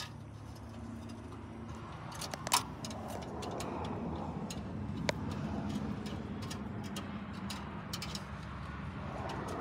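Steady motor-vehicle noise that swells from about two seconds in and then holds, with a few sharp metal clicks from a hand tool working a clamp on the exhaust pipe. The loudest click comes about two and a half seconds in, another near five seconds.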